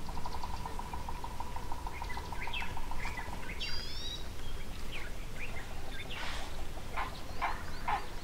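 Wild birds calling. A fast trill of evenly repeated notes runs for the first few seconds, with short chirps over it. From about six seconds a series of louder calls repeats about two to three times a second.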